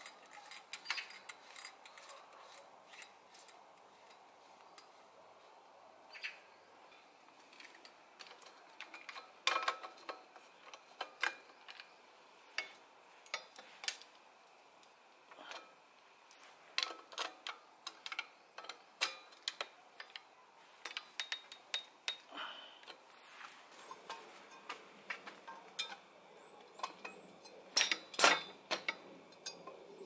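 Irregular small clicks and taps of bicycle parts being handled and fitted by hand: bottom bracket cups threaded into a steel frame, then a crankset with chainring fitted. A quick cluster of louder clicks comes near the end.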